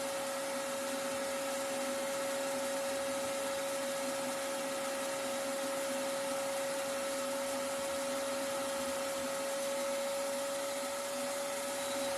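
Vacuum cleaner running steadily, a constant whine over its airflow noise.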